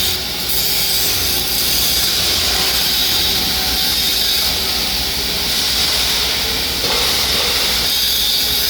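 Steady loud hiss over a low rumble, with no distinct events.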